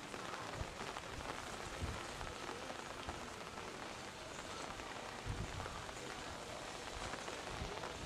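Steady rain falling, an even hiss with scattered drops, and a few brief low thumps.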